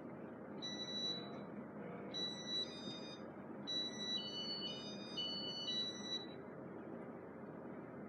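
Casablanca IntelliTouch fan control sounding a run of electronic beep tones at shifting pitches in demo mode, starting about half a second in and stopping about six seconds in. A steady background noise runs under the beeps.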